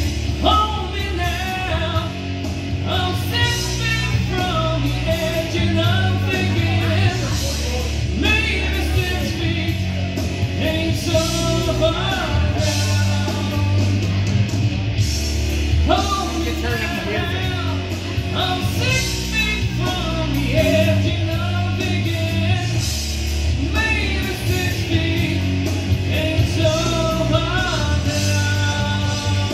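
Male karaoke singer singing a rock ballad into a handheld microphone over a rock backing track, both amplified through PA speakers.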